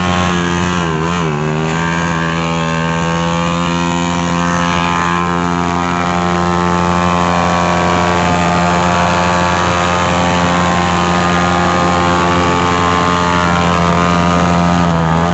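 Motorcycle engine held at high revs during a burnout, the rear tyre spinning on dirt. The pitch wavers briefly about a second in, then holds steady.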